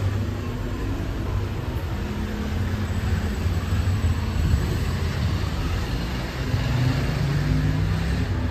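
Street traffic: vehicle engines running and passing, with a steady low engine drone that shifts in pitch and rises slightly near the end.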